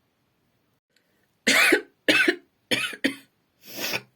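A person coughing four times in quick succession, each cough short and sharp, the last one softer.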